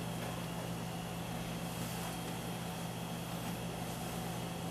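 Steady low hum with an even hiss over it, level throughout and without any clicks or knocks: kitchen background hum, such as a fan or a burner.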